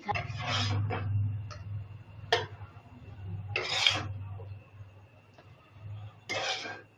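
A spatula scraping cooked potato and cauliflower out of a non-stick kadai and onto a steel plate: three scraping strokes, with one sharp tap a little past two seconds in.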